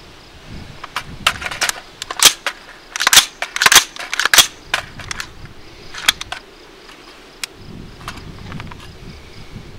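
AR-15 firing UTM (Ultimate Training Munitions) marking cartridges: a string of sharp, light pops at uneven spacing. They come thickest in the first half, with the loudest ones in quick succession a few seconds in and a few scattered pops later.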